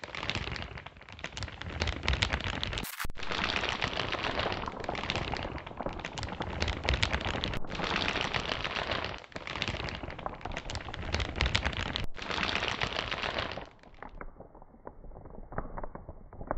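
Burning newspaper crackling as the flames eat along its edge, a dense, continuous run of small crackles. About two seconds before the end the crackle turns quieter and more muffled.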